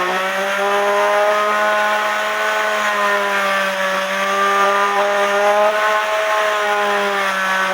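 Oscillating multi-tool running with a steady motor whine, its pitch wavering slightly.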